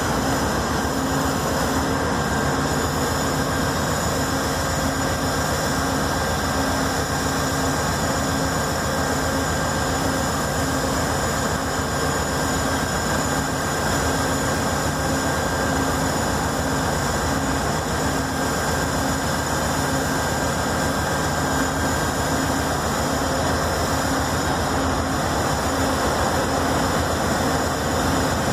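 An Amtrak GE Genesis diesel locomotive's engine running at a steady pitch as the locomotive rolls slowly past. It makes an even, unbroken drone with a faint hum.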